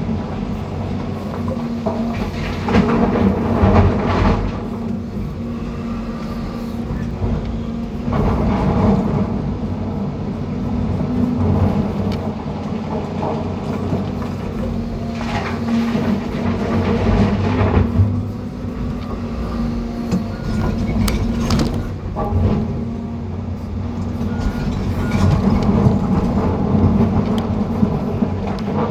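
Diesel engine of a John Deere 350G excavator running steadily under hydraulic load, heard from inside the cab. Every few seconds there is a louder stretch of rocks clattering as rip rap is dug and dumped.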